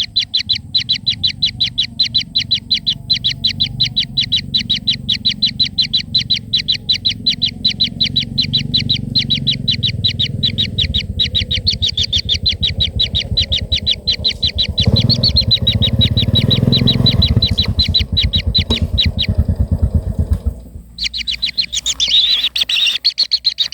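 A rapid, even train of high chirps, several a second, over a low rumble that grows louder in the middle and stops abruptly about three-quarters of the way through.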